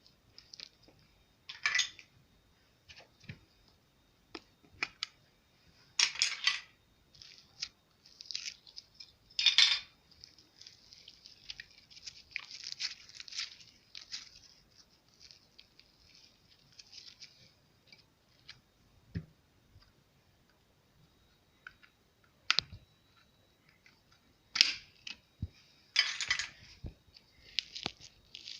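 Slime being squeezed and stretched by hand, giving irregular sticky crackles and pops, with a few louder squelches and light knocks.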